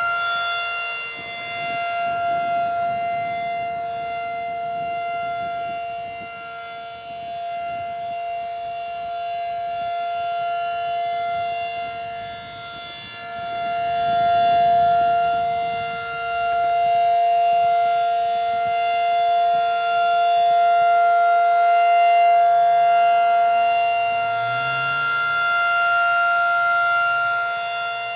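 Federal Signal 2001-SRN outdoor warning siren sounding a steady full-alert tone, a two-note chord held at constant pitch. It swells and fades in loudness every few seconds as the rotating siren head sweeps past.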